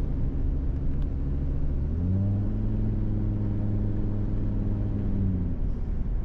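Car engine and road noise heard from inside the moving car. About two seconds in the engine note rises as the car picks up speed, holds steady, then drops back near the end.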